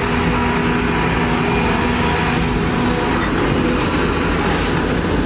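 Volvo EC480DL excavator's diesel engine running steadily under load, with a constant whine from its hydraulics, while it digs and swings a bucket of earth.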